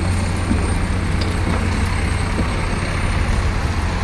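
Rear-loading garbage truck engine running steadily at idle, a low drone under a steady hiss.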